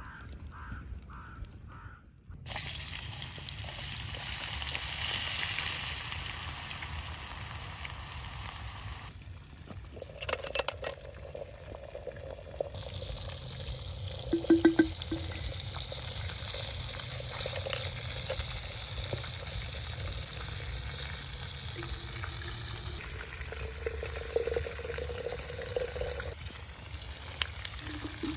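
Food sizzling as it fries, a steady hiss broken into several short edited takes, with a few sharp clicks of a utensil against the pan about ten and fifteen seconds in.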